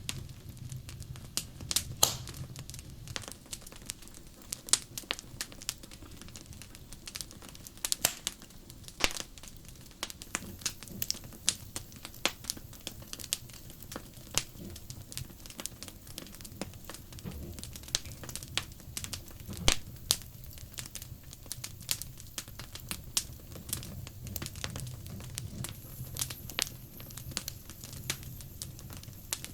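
Wood fire crackling, with irregular sharp pops and snaps over a low steady rumble; the loudest pops come about 2, 8, 9 and 20 seconds in.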